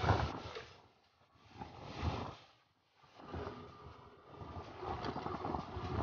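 Wind buffeting the microphone of a moving motorcycle in surges that swell and die away, nearly dropping out just before three seconds in. Underneath, the motorcycle's engine runs faintly as it rides a rough dirt road.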